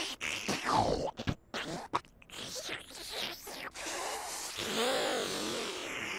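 Cartoon vacuum-cleaner sound effects of Noo-Noo sucking at a foil blanket: choppy squeaky glides and crackles for the first few seconds, then a steadier sucking hiss with a wavering pitch.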